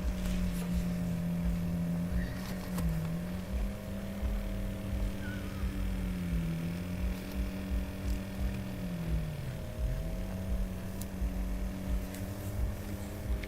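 An engine running at a steady speed with a low hum. Its pitch sags briefly and recovers three times, as if throttled back.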